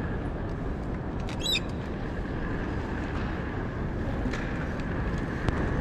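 Steady low rumble and hiss of airport terminal ambience in a baggage-claim hall, with a brief high chirp about one and a half seconds in.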